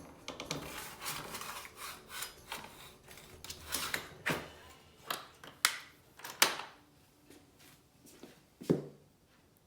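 Electric bike battery and its cover being handled and fitted into place: a couple of seconds of rubbing and scraping, then irregular sharp clicks and knocks, the loudest near the middle and a last knock near the end.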